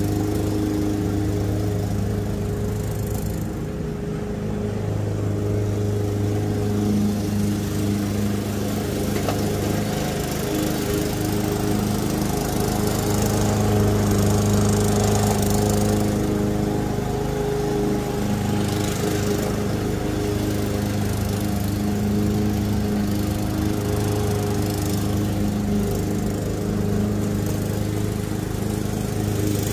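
Craftsman walk-behind gas lawn mower engine running steadily as it cuts grass.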